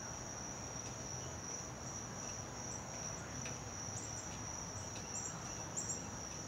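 Insects trilling outdoors: one steady, unbroken high-pitched note, with faint short higher chirps joining in from about three seconds in.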